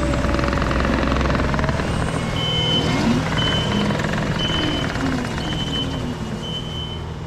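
Diesel engine of a compact construction machine running under load, with a reversing alarm beeping five times, about once a second, from about a third of the way in.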